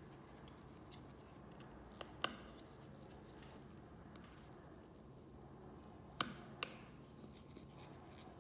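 Four short, sharp clicks of small tools and phone parts being handled during an iPhone repair, in two pairs, the first about two seconds in and the second about six seconds in, over a faint low hum.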